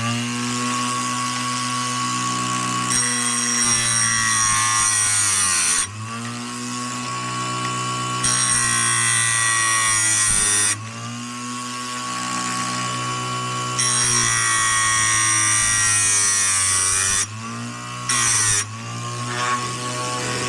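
Oregon electric chainsaw-chain sharpener running, its grinding wheel touching chain cutters four times, three passes of about three seconds and a short one near the end, each a bright, harsh grind over the steady motor hum.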